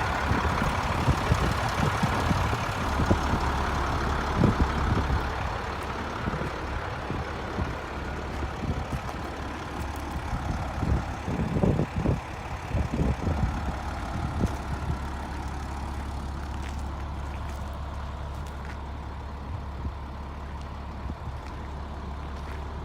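Diesel engine of a 1996 International 4900 bucket truck idling steadily, with scattered knocks and clunks over it.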